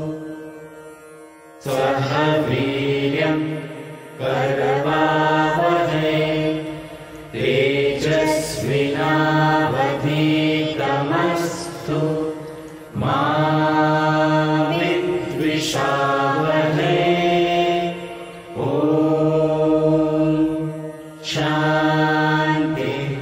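Morning prayer chanted by singers in long, drawn-out phrases of a few seconds each, holding steady notes, with a short pause for breath between phrases.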